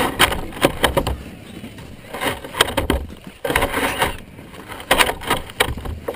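Plastic sled sliding and scraping over snow, a rough rushing hiss broken by many irregular knocks and bumps as it jolts along.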